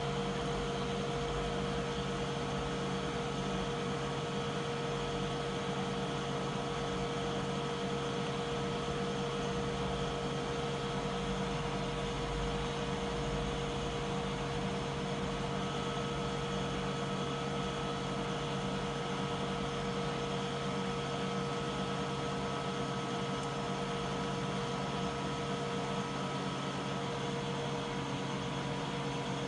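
Steady machine hum: several constant droning tones over an even hiss, unchanging throughout.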